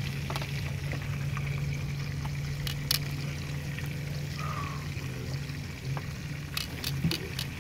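Fish sizzling steadily as it fries in oil in a skillet on a portable butane stove, with a few sharp light clicks near the middle and toward the end.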